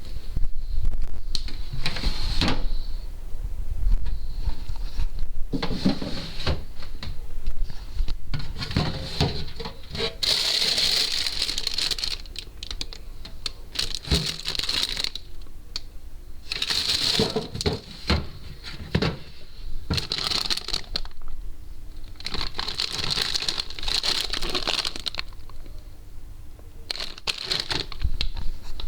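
Food packaging and containers being handled in a fridge: repeated bursts of rustling and crinkling with small knocks and clicks between them, over a steady low hum.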